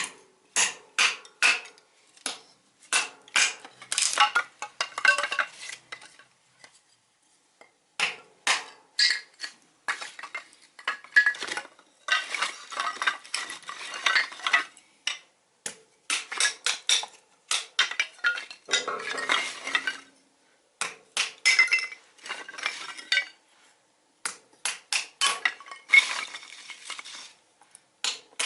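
Thin tin-can metal being handled and worked: runs of sharp clinks and taps alternating with longer stretches of metallic scraping and rattling, with a couple of short pauses.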